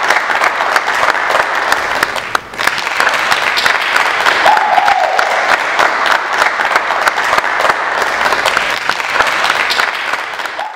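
A handful of people clapping hard and continuously, with a brief high call rising and falling over it about four and a half seconds in. The clapping fades away at the very end.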